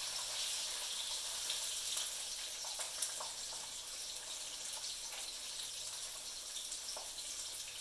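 Breaded chicken cutlets shallow-frying in hot oil in a skillet: a steady sizzle with a few faint clicks.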